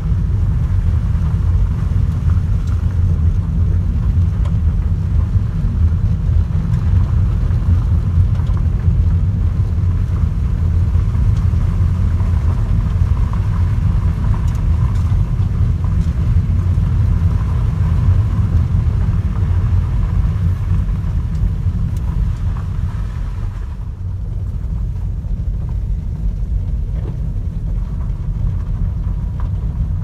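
Car road noise heard from inside the cabin while driving slowly on an unpaved gravel road: a steady low tyre and road rumble. The lighter hiss above it thins out near the end.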